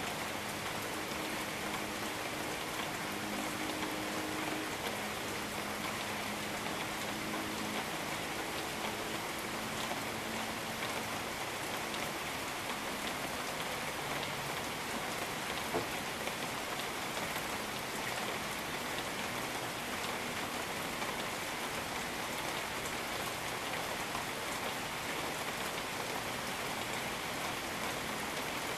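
Steady rain falling on jungle surfaces, an even hiss with no let-up.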